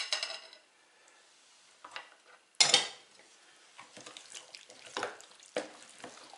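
A wire whisk clinks and scrapes against a ceramic bowl, then, about two and a half seconds in, a louder clatter as the bowl is put down. After that comes a wooden spoon stirring and scraping a thick, wet mixture of diced potatoes, onions and egg in a plastic bowl, in irregular strokes.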